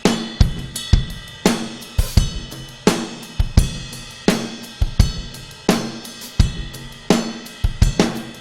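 A drum kit playing a steady beat in a big, reverberant room: kick, snare and cymbal hits land about every 0.7 seconds, and each one rings out and decays in the room.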